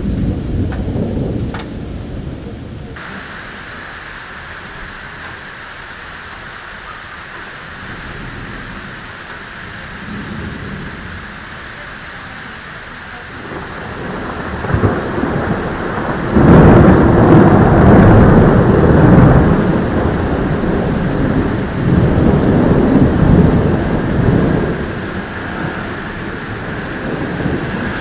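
Thunderstorm: steady rain with thunder. A rumble of thunder dies away in the first couple of seconds, then a long roll of thunder builds about halfway through, is loudest for a few seconds, and rumbles on before fading near the end.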